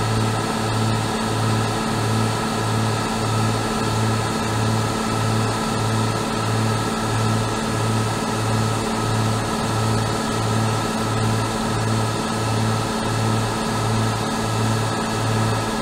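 The twin Cummins NT diesel engines of a BEML OHE inspection railcar idling at standstill: a steady hum that swells and fades evenly, about one and a half times a second.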